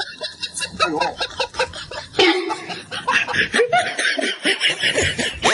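A chicken clucking and squawking in short, sharp calls as it is handled and lifted off its nest.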